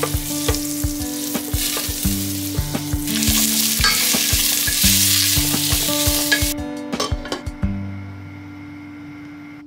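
Food sizzling as it fries in a pan while it is stirred, with repeated clicks of the utensil against the pan. The sizzling stops about six and a half seconds in, leaving soft background music.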